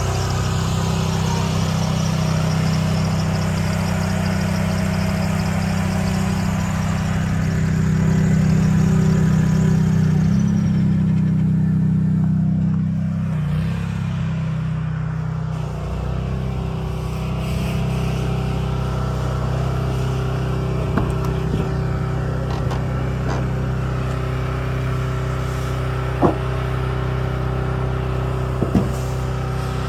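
An engine idling steadily. Two short sharp clicks come near the end.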